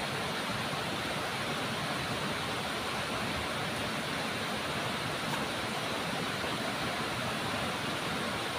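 Steady rushing of river water pouring over a low concrete weir.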